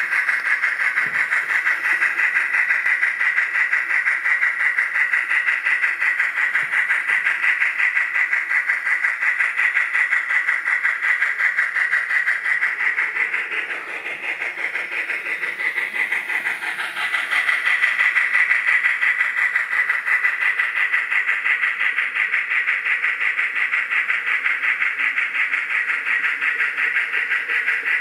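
Model Union Pacific Big Boy steam locomotive running on a layout: a steady, rapid chuffing hiss that dips for a few seconds about halfway through, then comes back up.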